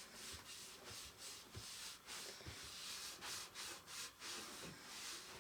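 Faint hand rubbing on a painted steel bicycle rim, a series of scratchy scrubbing strokes about two a second.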